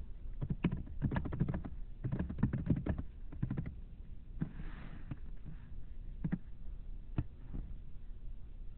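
Typing on a computer keyboard: a quick run of keystrokes over the first few seconds, then a few scattered single clicks.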